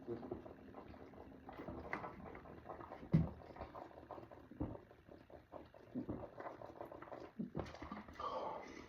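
A person chugging carbonated soda and burping: a series of short, low burps and gulping noises, with a sharp knock about three seconds in.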